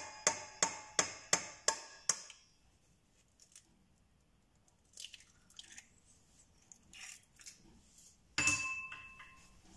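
A fast, even run of ringing metallic ticks, about three or four a second, stopping after about two seconds. Then faint clicks, and a short hiss with a steady whistling tone a little over eight seconds in.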